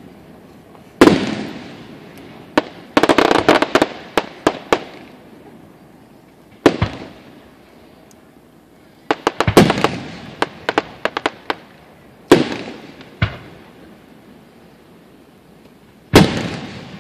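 Aerial fireworks shells bursting: several single booms, each echoing away, and two runs of rapid sharp pops in between.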